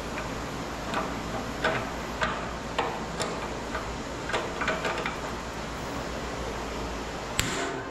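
Irregular small clicks and light knocks of hand tools working on metal parts of an air compressor during minor adjustments, over a steady background hiss.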